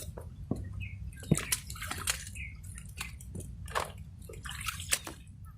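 Water sloshing and splashing, with irregular sharp clicks and taps over a steady low rumble.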